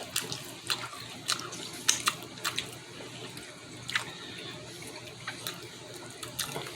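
Eating sounds from someone chewing ribs: scattered wet mouth clicks and smacks, heard close, over a steady hiss.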